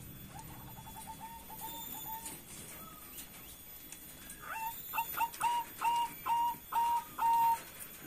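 Zebra dove (perkutut) calling: a quick run of soft, short cooing notes in the first two seconds, then a louder series of about eight clear coos, each sliding up at its start, with the last note held longest.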